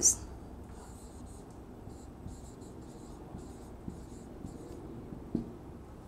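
Whiteboard marker squeaking and scratching across a whiteboard in a run of short strokes as a word is written, with a light tap about five seconds in.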